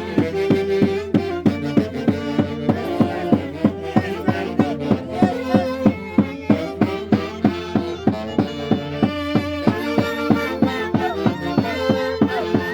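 Instrumental Santiago dance music from Peru's Mantaro Valley: violins play the melody over a steady drum beat of a little over two strokes a second.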